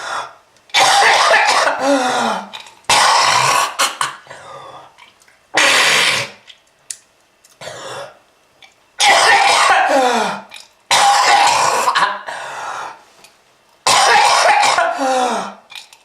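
A person's harsh, drawn-out coughing and throat-clearing, in about six loud bouts with short pauses between them; several bouts end in a voiced sound that falls in pitch.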